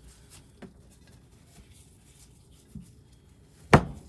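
Handling noise from lifting a cheesecloth bag in a glass jar: a couple of faint clicks, then one sharp knock near the end.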